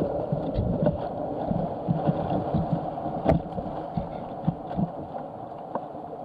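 Canoe running whitewater rapids: a steady rush of white water with irregular slaps and splashes of waves against the hull and spray cover, and one sharp knock about three seconds in.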